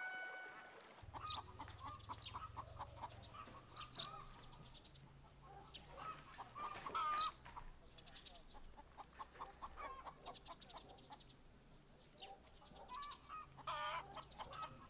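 Chickens clucking in short, repeated calls, faint, over a low steady hum.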